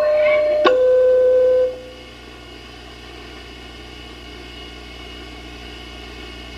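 Electronic keyboard playing a two-note ding-dong chime that sounds like a doorbell: a higher note, then a lower note about a second later, held and fading out. A faint steady background noise follows.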